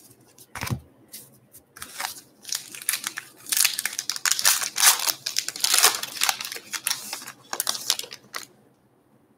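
A single thump less than a second in, then the foil wrapper of a Topps Gypsy Queen baseball card pack being torn open and crinkled. The crackle runs for several seconds, is loudest in the middle, and stops shortly before the end.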